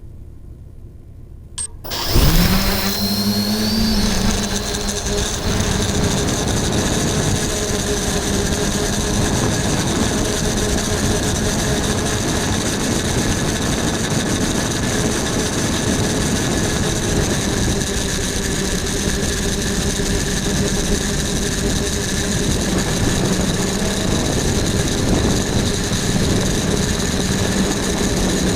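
Quadcopter's electric motors and propellers spinning up about two seconds in with a rising whine, then a steady whirring buzz with a high whine on top.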